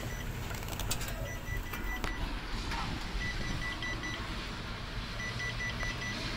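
Electronic warning beeper in a tower crane cab sounding in bursts of short, high beeps, a burst about every two seconds, over a steady low hum.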